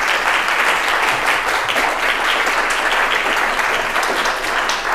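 Audience applauding in a lecture hall: many people clapping steadily.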